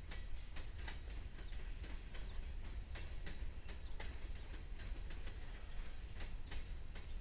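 Freight train passing: a steady low rumble with a scatter of sharp, irregular clicks.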